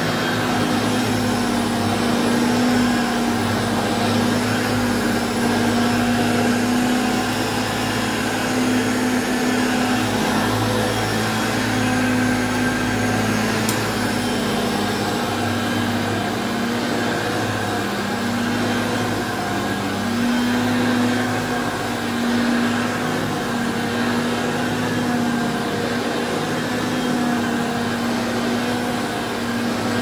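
1981 Hoover Concept 1 Power Drive upright vacuum cleaner (model U3103) running while being pushed back and forth over carpet: a steady motor hum whose pitch wavers slightly.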